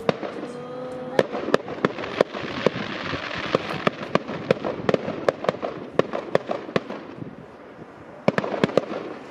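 Fireworks display going off: a rapid run of sharp bangs and cracks over a dense crackling hiss. It thins out for a moment, then a cluster of bangs comes near the end.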